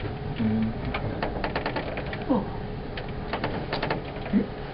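Irregular clicking and rattling inside an aerial tramway cabin as it descends, over a steady low rumble, with a few brief snatches of voice.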